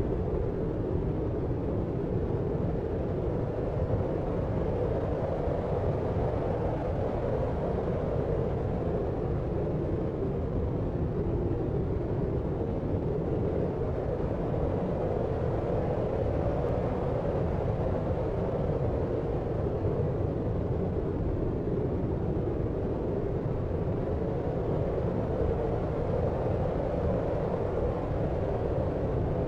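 Steady deep noise for sleep, an even low rumble with no changes and little treble.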